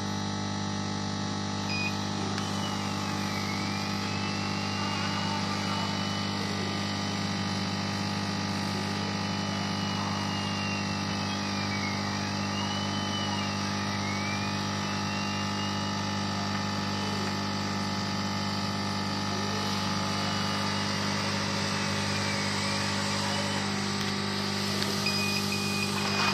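Laser cutting machine running: a steady machine hum under a whine from the moving cutting head that rises and falls in pitch in smooth arcs every couple of seconds as it traces a curved cut.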